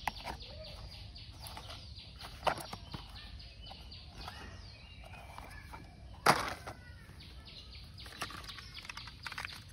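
Plastic toy vehicles being handled and set into a cardboard box: light clicks and knocks, with one louder clatter about six seconds in. Birds chirp faintly in the background.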